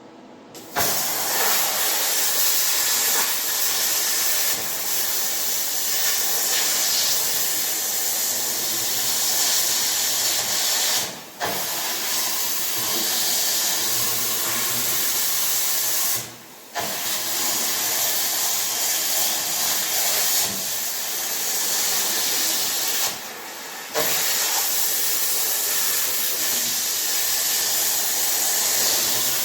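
Plasma cutter cutting through the steel drawbar: a loud, steady hiss of air and arc that stops briefly three times as the trigger is released and pressed again.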